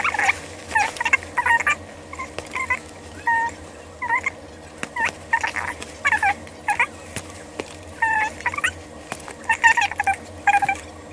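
A small animal chirping and squeaking in short calls that rise and fall in pitch, a few each second.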